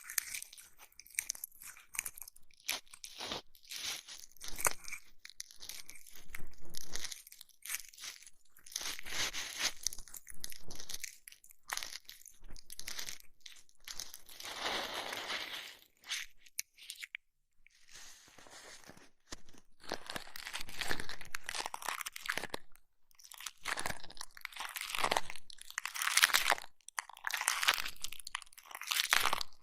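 Close-miked ASMR ear massage: irregular crunchy, crackling rubbing and scratching on the microphone's ears, with a short lull about halfway through.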